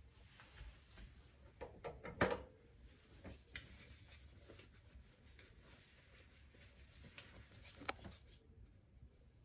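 Espresso machine portafilter being handled and wiped with a cloth: faint rubbing and small clicks, with a sharp knock about two seconds in, the loudest sound, and another near the end.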